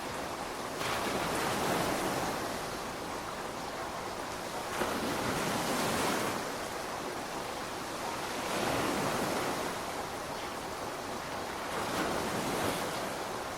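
Ocean waves breaking on a beach. Four surges about three to four seconds apart swell up out of a steady hiss of water.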